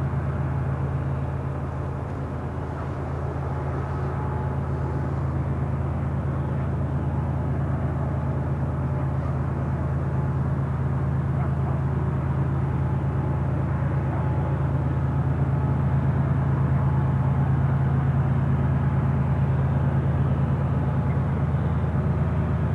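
Diesel engines of a lash-up of Union Pacific GE ES44AC (C45ACCTE) freight locomotives running as a steady low drone that slowly grows louder as the train approaches.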